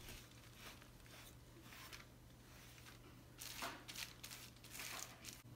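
Mostly near silence with a faint low hum, broken by a few faint rubbing strokes of a terry cloth sponge wiping stain off wooden slats, about three and a half and five seconds in.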